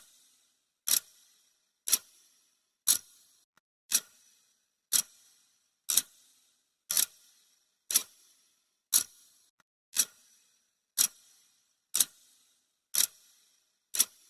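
Clock ticking sound effect: one sharp, even tick every second, each fading quickly.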